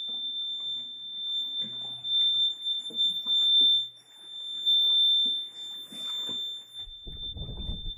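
Steady, high-pitched electronic alarm tone sounding aboard a boat from a source nobody can find, with faint knocks and handling noise beneath it and a low rumble near the end.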